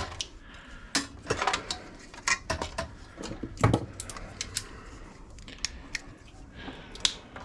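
Small metal parts and hand tools clicking and clinking as electronic scrap is taken apart by hand, irregular light knocks with a couple of louder ones.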